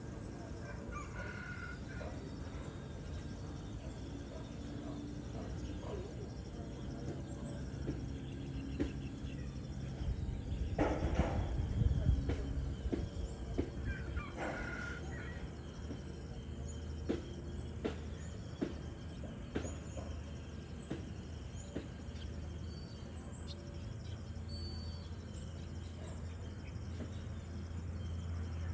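Outdoor morning ambience with a rooster crowing twice around the middle, over a steady low background noise and scattered sharp knocks.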